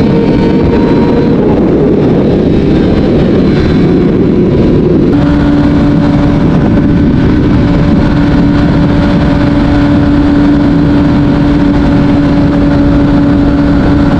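Kawasaki Ninja ZX-6R inline-four running at speed through an Akrapovic exhaust, with a dense rush of wind and road noise. About five seconds in, the engine note steps down to a lower pitch and then holds steady.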